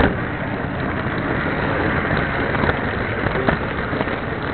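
O scale model train running on its track: a steady rolling rumble of wheels on the rails, with an occasional faint click.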